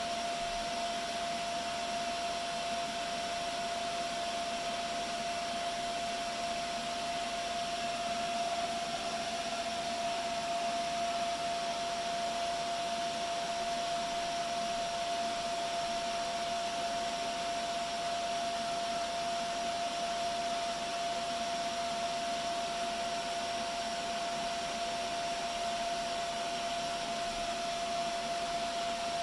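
Dell PowerEdge T630 tower server running, its cooling fans making a steady rush of air with a constant whine.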